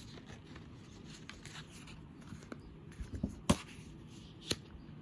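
Sheets of patterned craft paper being handled and leafed through: faint rustling with a few sharp clicks, the loudest about three and a half seconds in and another a second later.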